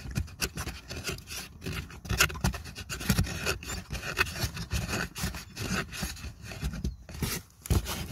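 Hands rubbing and pressing on a carpet-covered plastic footwell trim panel while pushing its fasteners home: irregular scraping and rustling with small knocks.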